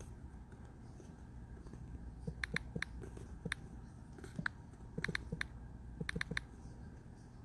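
Typing: irregular light key clicks, often in quick twos and threes, over a faint low hum.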